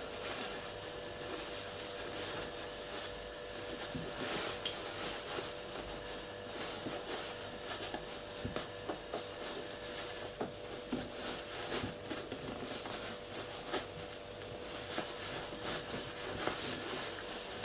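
Soft rustling and rubbing of a stuffed calico fabric body being handled and pinched while wire is wrapped around its base ring, with scattered faint ticks, over a steady faint electrical hum.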